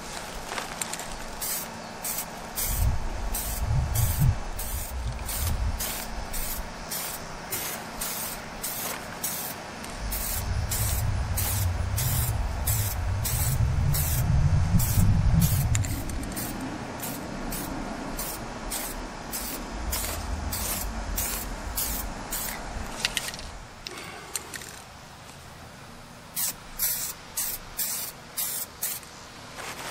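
Aerosol spray paint can spraying a plastic interior trim piece in many short passes, about two hisses a second, pausing briefly near the end before a few more.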